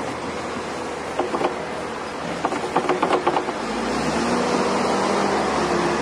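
Tractor engine running as the tractor pushes snow with its front plow blade. A run of sharp clacks and rattles comes through the middle. About two-thirds of the way through, the engine note deepens and grows louder.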